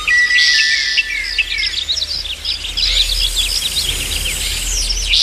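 Many birds chirping together in a dense chorus of short, quick calls. A short high buzz joins in near the start.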